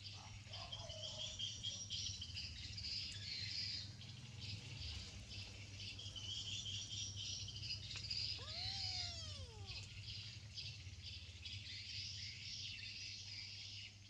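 Insects chirring steadily in dense high pulses, crickets or cicadas. About eight seconds in, one short animal call rises and then falls in pitch.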